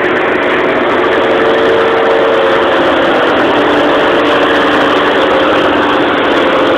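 Tractor engine running steadily under load while its front boom-mounted mower head spins and cuts through a hedge. Makes a loud, even mechanical drone with steady humming tones.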